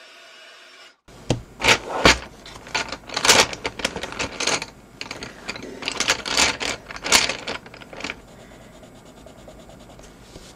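Irregular clatters and rubbing as a hand rummages through a pencil case of Prismacolor wax coloured pencils, dying away after about eight seconds.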